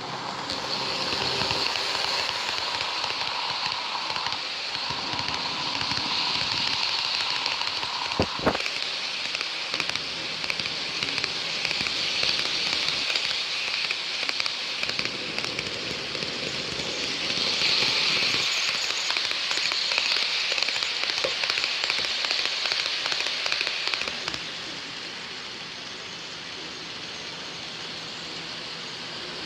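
Passenger train running along the rails: a steady rushing, crackling noise of wheels and carriage, with a sharp knock about 8 seconds in, easing to a quieter rumble about 24 seconds in.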